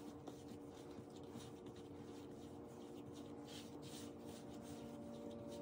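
Yeast dough being kneaded by hand on a floured wooden board: faint, repeated soft rubbing swishes as the hands push and fold the dough.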